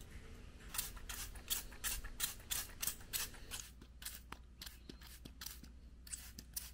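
Plastic trigger spray bottle misting water onto potting soil in quick, quiet squirts, about three a second.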